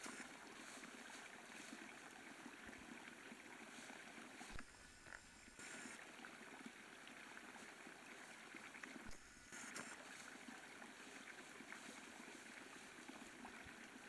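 Near silence: a faint, even outdoor hiss, broken by brief bumps about four and a half and nine seconds in.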